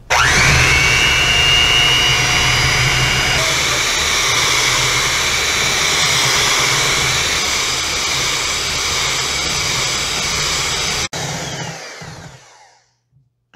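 Electric hand mixer running at high speed, its beaters whipping instant coffee, sugar and ice water into foam. The motor whine rises as it starts, breaks off for an instant near the end, then winds down.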